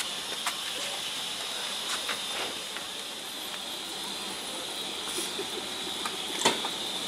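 Steam locomotive hissing steam steadily, a high, even hiss. A few light clicks and one sharp knock about six and a half seconds in.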